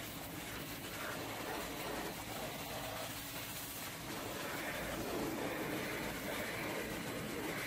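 Pressure-washer jet spraying a truck's windshield and cab roof: a steady hiss of water spattering on glass and metal. It grows a little louder about halfway through.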